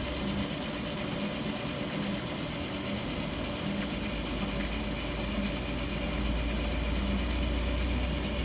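Avey drill press running under power with a steady motor and gear hum. Its deep low hum weakens for a few seconds, comes back strongly about four seconds in, and the sound grows a little louder from about six seconds.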